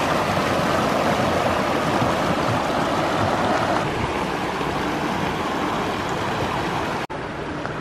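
Mountain creek rushing over rocks and small rapids: a steady whitewater rush that drops out for an instant near the end.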